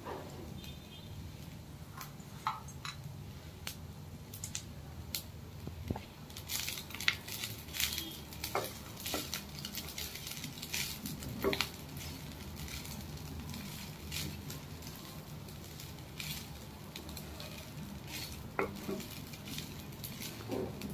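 Wooden spatula stirring and tossing cooked rice in a nonstick frying pan. Irregular light scrapes and taps against the pan, busiest in the middle, over a steady low hum.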